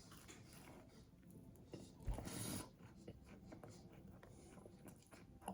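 Faint scratchy rustling and chewing of someone eating a Rice Krispie treat, with one louder, brief scratchy burst about two seconds in.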